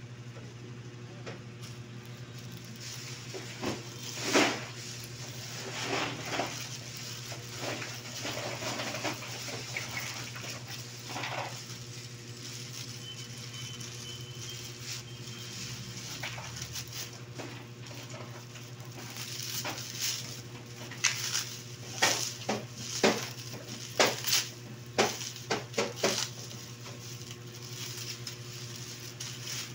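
Plastic packaging rustling and crinkling as a mailer bag is cut open with scissors and the clear inner bag is pulled out and unwrapped, with a run of sharp crackles in the second half. A steady low hum runs underneath.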